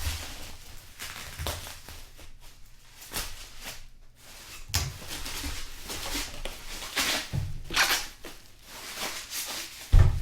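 Packaging being handled and pulled open by hand: irregular crinkling, tearing and scraping, with a sharp knock near the end.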